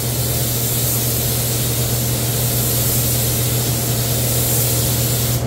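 Air spray gun hissing steadily as it lays primer on a truck's fender, then cutting off suddenly as the trigger is released at the end, over a steady low hum.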